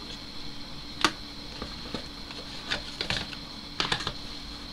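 Clicks and taps of a phone's cardboard box and plastic inner tray being handled. A sharp click about a second in is followed by scattered lighter clicks, with a cluster of them near the end.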